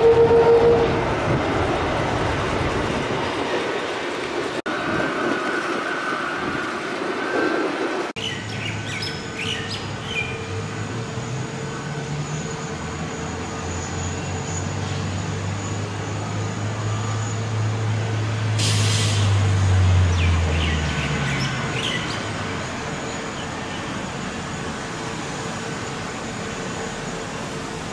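Jet airliner engines on approach to land: a steady whine over a low drone. The drone swells to its loudest about twenty seconds in, then drops in pitch and fades.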